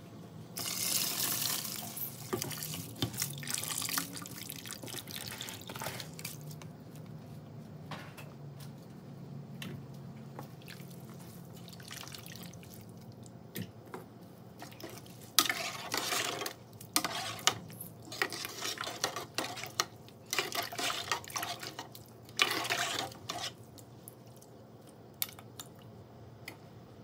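Rice poured into a pot of beef broth about a second in, a rushing, splashing pour lasting a few seconds. From about halfway, a metal ladle stirs and sloshes the broth in a series of short splashing strokes.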